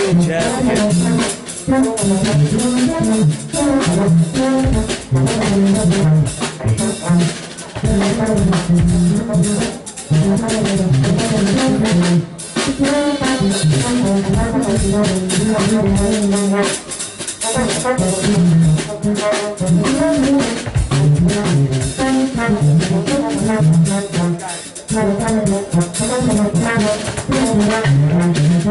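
Live jazz jam by a trio of trombone, keytar and drum kit. The trombone carries a melodic line over busy drumming.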